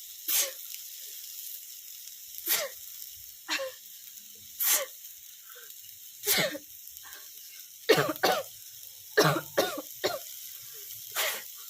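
A person coughing, about eleven short coughs, several in quick succession in the second half, brought on by the pungent fumes of spicy food frying. A faint steady frying sizzle runs underneath.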